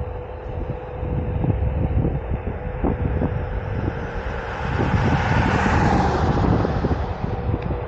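Wind buffeting a helmet-mounted microphone while riding a Onewheel GT, with the board's hub motor giving a steady thin whine underneath and a few light knocks. A rushing noise swells up about halfway through and fades again near the end.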